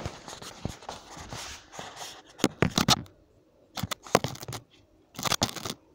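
Three short bursts of crinkly crackling and rustling, a little over a second apart.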